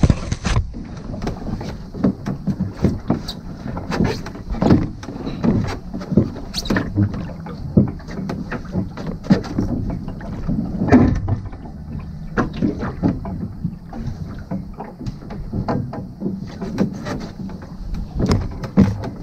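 Irregular knocks and clunks of a small wooden sailing boat's fittings as someone clambers aft and hauls up and locks the rudder, over a steady wash of water around the hull.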